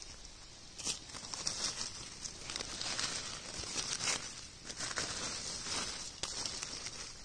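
Dry fallen leaves crackling and rustling in irregular bursts as a hand brushes through the leaf litter on the forest floor.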